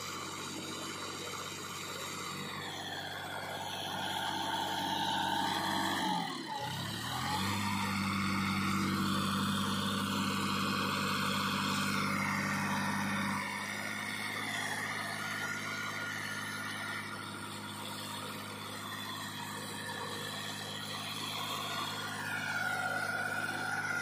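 Sonalika DI 35 tractor's three-cylinder diesel engine working under load, pulling a trailer through soft sand. Its pitch dips and climbs again about six seconds in. It then runs louder and steadier until about halfway through before easing back.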